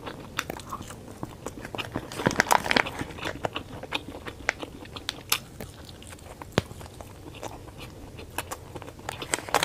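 A person biting and chewing chewy, spice-coated wheat gluten rings close to a clip-on microphone. Irregular short mouth clicks and smacks, busiest about two to three seconds in.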